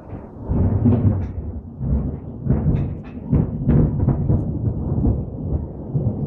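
Thunder rumbling, swelling about half a second in and rolling on, with a string of sharp cracks through the middle.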